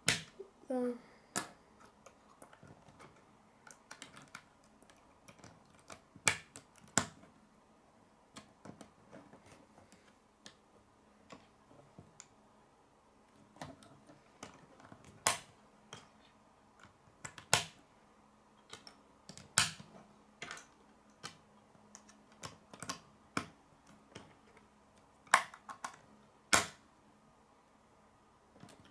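K'nex plastic rods and connectors clicking as they are snapped together and handled on a wooden table: irregular sharp clicks, some much louder than others.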